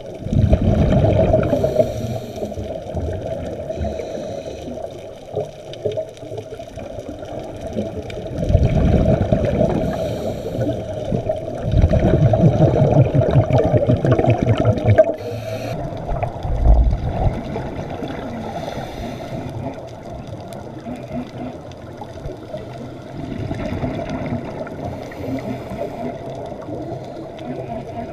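Scuba diver's exhaled breath bubbling out of the regulator, heard underwater through the camera housing: several bursts of bubbling rumble, each lasting one to three seconds, a few seconds apart, over a steady underwater hum.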